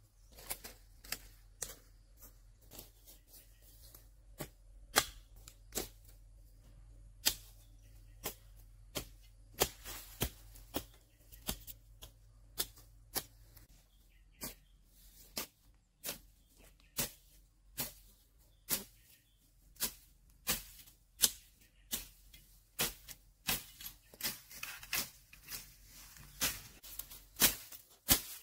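A blade chopping bamboo: sharp strikes, irregular at about one to two a second, coming quicker near the end.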